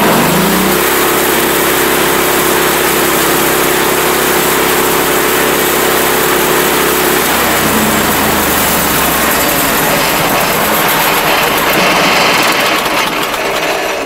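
Portable bandsaw mill's engine revving up about half a second in and running at high speed, spinning the band blade in a dry run with no log being cut. It drops back to a lower speed about seven seconds in.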